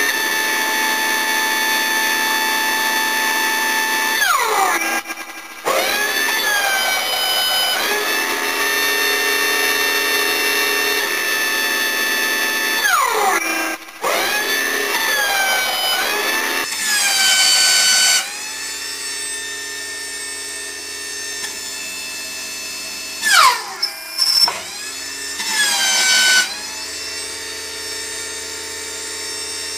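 Electric motor and hydraulic pump of a homemade hydraulic press power pack running with a steady whine. Three times its pitch sags sharply and climbs back as the pump comes under load pressing steel; it runs somewhat quieter from a little past halfway.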